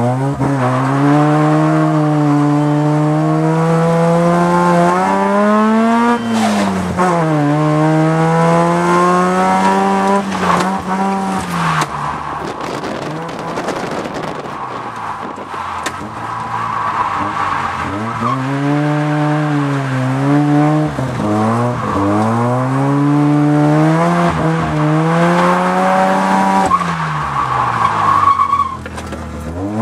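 Mazda RX-7 FC's two-rotor 13B rotary engine heard from inside the cabin, revving up and down again and again through a drift run. Tyres squeal briefly midway and again near the end.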